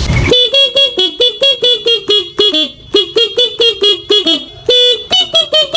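Telolet basuri multi-tone horn on a motorcycle playing a quick tune of short toots, several notes a second at shifting pitches, with a couple of brief pauses.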